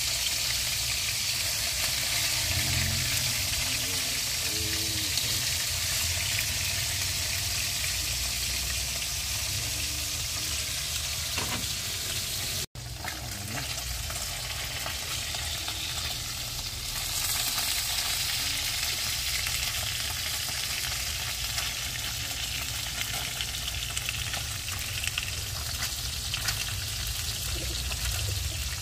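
Whole fish sizzling in hot oil in a frying pan over a wood fire: a steady, crackling frying hiss. It cuts out for an instant about halfway through.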